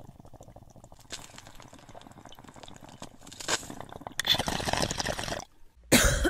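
Water bubbling and gurgling in a bong as smoke is drawn through it, getting louder for about the last second and a half of the draw, then a sudden loud burst near the end.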